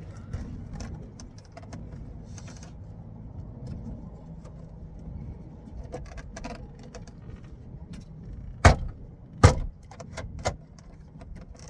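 Truck door trim panel being handled and fitted back onto the door: light plastic clicks and rattles, then two loud thumps about a second apart near the end and a smaller knock just after.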